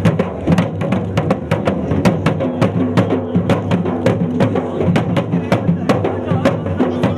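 Drums beaten in a fast, steady rhythm of about four strokes a second, with a steady low held tone underneath: ceremonial festival drumming.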